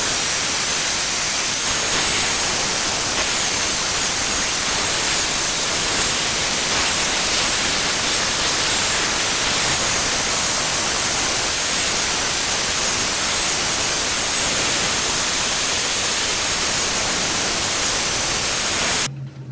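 A steady, loud hiss that cuts off abruptly near the end, with a faint wavering high whistle running through it.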